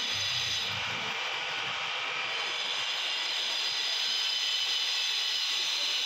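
Steady rushing hiss of a running machine, sitting mostly in the high range with little low end and no rhythm.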